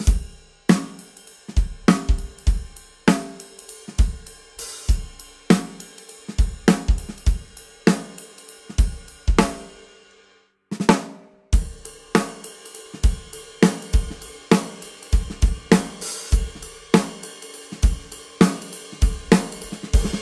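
A drum kit groove of bass drum, snare, hi-hat and ride cymbal, played first with Promark Forward 7A hickory sticks with oval wood tips, then with the much thicker Promark Forward 2B sticks after a short break about halfway through.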